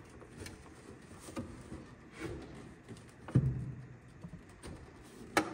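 Light knocks and clicks of hands handling a golf cart battery and its fold-down plastic handle, with one louder thump a little past halfway and a sharp click near the end.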